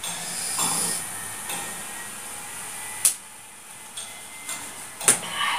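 A person hissing air through the mouth against the heat of spicy noodles, loudest in the first second, with two sharp clicks about three and five seconds in.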